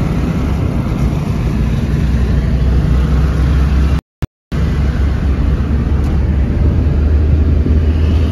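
Steady low rumble of a car's engine and road noise heard from inside the cabin while driving. The sound drops out briefly about four seconds in.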